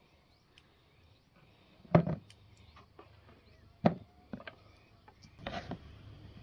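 Sharp wooden knocks: one strike about two seconds in and another about two seconds later, followed by a few lighter taps, then a short rustling scrape near the end.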